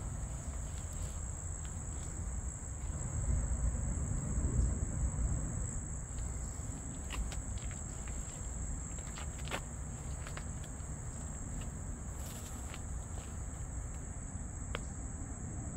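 Steady high-pitched chirring of crickets over a low rumble that swells about three to five seconds in, with a few faint clicks.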